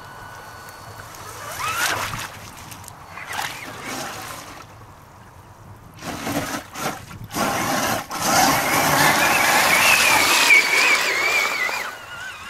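Electric radio-controlled Traxxas Summit truck driving into and through a river: its drivetrain whines, rising briefly as it goes down the bank, while water splashes and sloshes around the wheels. From about eight seconds in, the splashing and a wavering whine grow loud and continuous.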